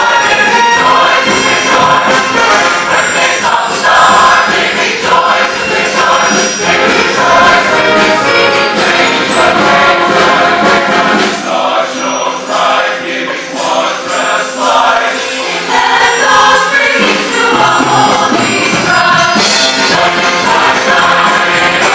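Large mixed choir singing a Christmas carol with orchestra accompaniment.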